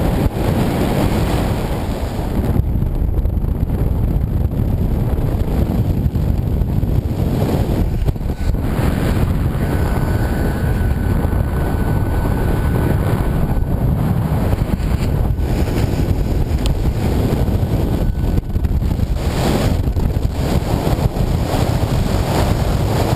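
Wind rushing over the microphone of a camera on a paraglider in flight: a loud, steady, low buffeting.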